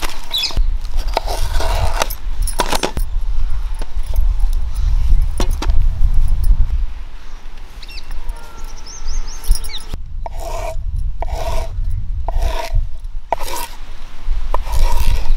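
Kitchen knife scraping and cutting a snake gourd on a wooden chopping board: a run of scraping strokes and knocks of the blade on the board.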